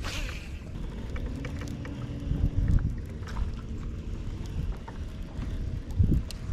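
Wind rumbling on the microphone aboard a fishing boat, swelling in gusts about two and a half seconds in and again near the end, with a faint hum underneath.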